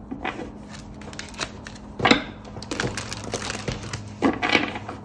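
A tarot deck being shuffled by hand: a run of quick papery clicks and slaps, thickest about two seconds in and again a little after four seconds.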